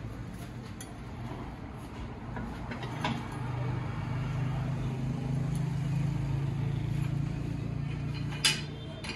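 A machine running with a steady low hum that grows louder about three and a half seconds in, and one sharp metallic clank near the end.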